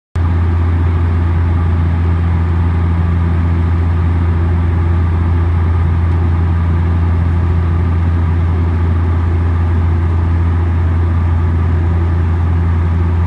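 Steady, loud cabin drone of a Bombardier Dash 8 Q400's Pratt & Whitney PW150A turboprops in flight, heard from a window seat beside the propeller, dominated by a deep, even propeller hum. It cuts in abruptly just after the start.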